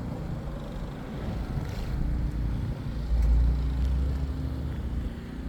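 Land Rover Defender driving through deep snow on an unplowed street, its engine rumbling and swelling loudest about three seconds in as it pushes past.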